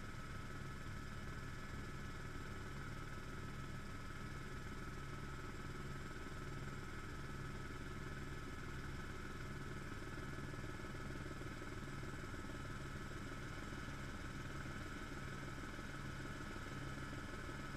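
Helicopter in flight heard from inside the cabin: a steady rotor and engine drone with a thin, steady high whine over it.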